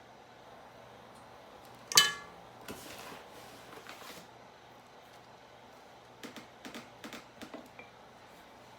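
Kitchen utensils being handled while making biscuit dough: one sharp, ringing clink about two seconds in, then a short scrape. A run of about eight light knocks follows later on.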